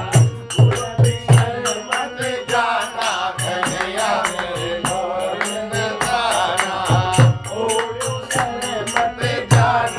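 Men singing a Hindi devotional bhajan together to a harmonium, with a steady beat of hand claps, about four a second.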